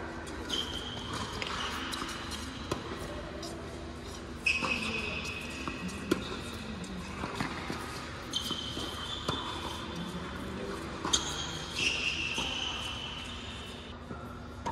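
Tennis balls struck by rackets and bouncing on the court during a doubles rally: several sharp hits, the loudest about four and a half and six seconds in, with a few more near the end.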